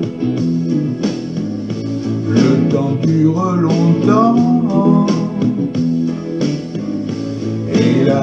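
Instrumental stretch of a French pop song: guitar over held chords, with a wordless gliding melody line in the middle.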